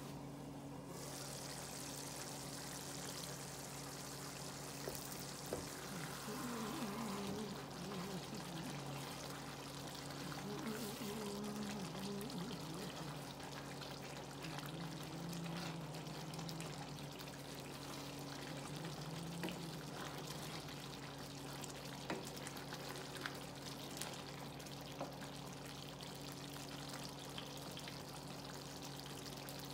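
A pot of sweet potato leaves in sauce simmering and bubbling, stirred with a wooden spoon that gives small scattered knocks against the pot, over a steady low hum.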